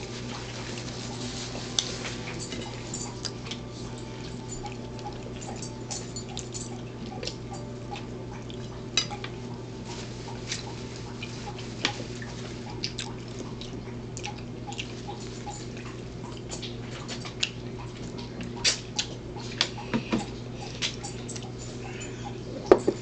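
Tableware sounds during a meal: scattered small clicks and clinks of plates and a drinking glass on a table over a steady low hum, with a sharper knock near the end as a glass with a straw is set down.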